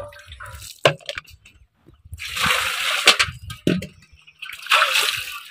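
Water splashing in two spells during hand washing with water from a steel bucket and aluminium pots, with a few sharp knocks of metal vessels, the clearest about a second in.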